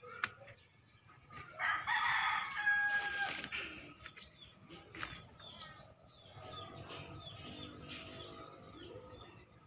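A rooster crowing once, the loudest sound, lasting about two seconds from about a second and a half in; quieter sounds follow in the second half.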